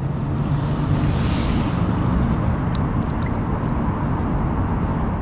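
Steady rushing rumble of wind on the microphone over open water, heaviest in the low end, with a few faint ticks about three seconds in.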